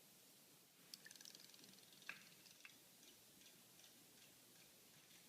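Near silence, with a few faint, short clicks about one, two and two and a half seconds in.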